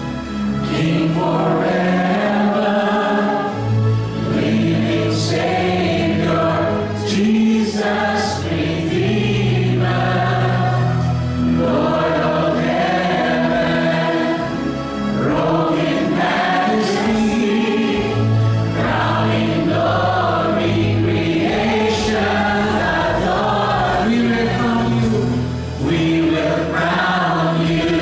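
Live Christian worship music: a group of singers backed by electric guitars, bass guitar and keyboard, playing a praise song.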